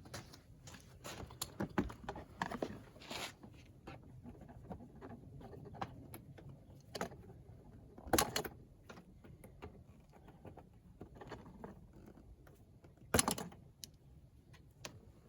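Hands working on car interior parts and the seat belt buckle's wiring: scattered small clicks, taps and rattles, with two louder knocks about 8 and 13 seconds in.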